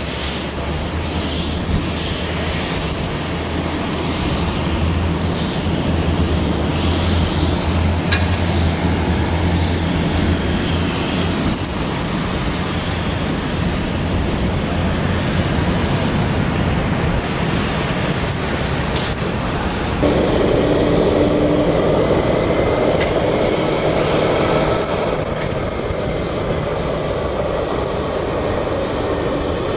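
An MD-80-series jet with rear-mounted Pratt & Whitney JT8D engines landing and rolling out on the runway, with a steady low engine rumble. About two-thirds of the way through, the sound changes suddenly to a Korean Air wide-body jet taxiing close by, its engines giving a steady whine over a low hum.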